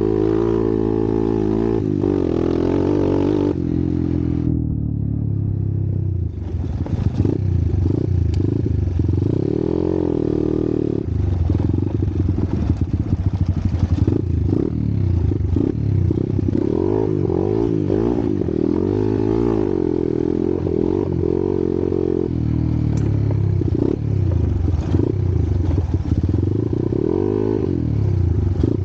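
Single-cylinder trail motorcycle engine heard from on board while riding a rough dirt track, its revs repeatedly climbing and dropping as the throttle is opened and closed, with the bike rattling over the bumps.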